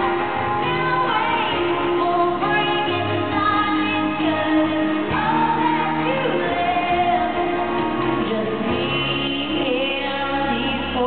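Live acoustic pop ballad sung by a female lead singer with backing singers, over acoustic guitar, upright bass and keyboard.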